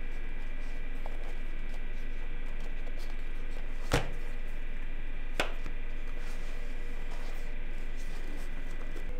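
Tablet being pressed into its plastic folio case: two sharp clicks about a second and a half apart, the first louder, as it snaps into the holder, over a steady background hum.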